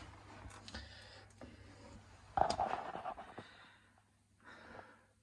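A man sighs heavily about two seconds in, over a faint low hum.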